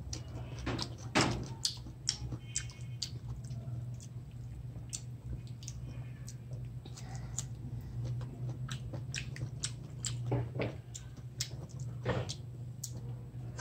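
A person chewing and eating mango slices dipped in shrimp paste close to the microphone: irregular wet mouth clicks and smacks, over a steady low hum.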